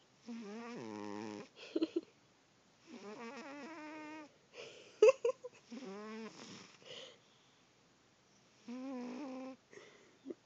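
A sleeping cat snoring: a pitched, wavering snore on each breath, coming about every three seconds with short quiet gaps between. A sharp click about halfway through is the loudest moment.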